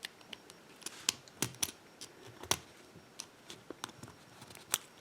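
Scattered small metal clicks and taps from a padlock's retaining clip being worked off the lock cylinder.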